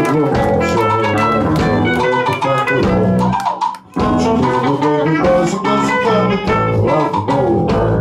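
Live rock band playing: electric guitars, bass guitar and drums. The whole band stops dead for a moment about halfway through, then comes straight back in together.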